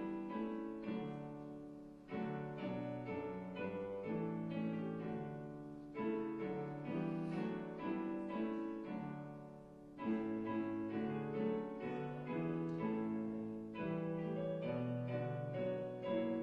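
Solo piano playing slow, sustained chords as a closing postlude, each note struck and left to fade, with a fresh phrase beginning about every four seconds.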